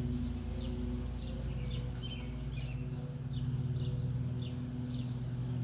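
A small bird chirping over and over, short high notes about every half second, over a steady low hum.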